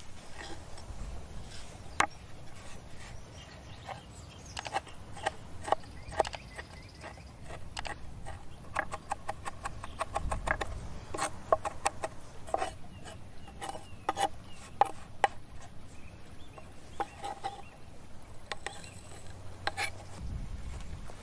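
A large kitchen knife cutting and chopping on a wooden board: sharp knocks of the blade on the wood, coming in irregular runs of several quick taps.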